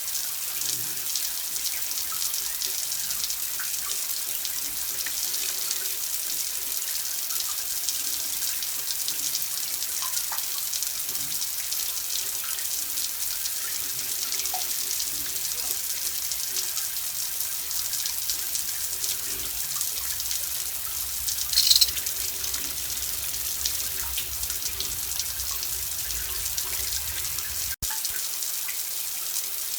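Running water splashing in a steady hiss, with a brief louder splash about two thirds of the way in and a momentary cut in the sound near the end.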